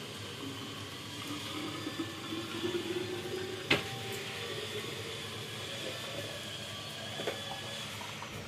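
Hot water being poured into a bottle, the pouring note rising steadily in pitch as the bottle fills, then a sharp click a little under four seconds in, over a steady hiss.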